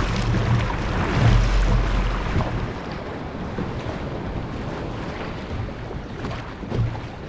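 Sea water rushing and splashing around a paddled inflatable kayak, with wind buffeting the microphone in low rumbles, heaviest in the first two and a half seconds and then easing to a steadier wash.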